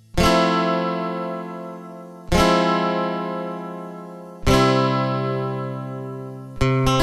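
Background music: acoustic guitar chords strummed about every two seconds, each left to ring out, then quicker strumming near the end.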